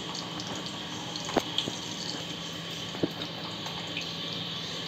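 Steady hiss from a nonstick kadhai over a gas flame as lumps of Dalda ghee melt, not yet hot enough to sizzle strongly. A metal slotted spatula knocks against the pan twice, about a second and a half in and again about three seconds in.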